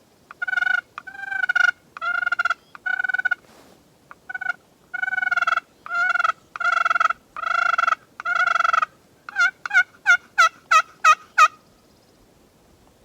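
Turkey hen yelping: a long run of loud yelps, ending in about seven short, quicker notes near the end.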